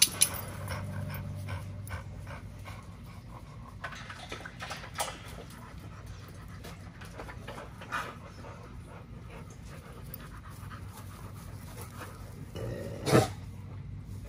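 XL pitbulls panting, with a few sharp knocks right at the start and one brief louder sound near the end.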